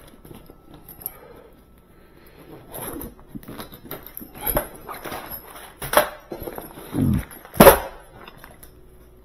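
Handling noise and sharp knocks as the grille panel of a Sub-Zero built-in refrigerator is taken off: three knocks in the second half, the last one the loudest.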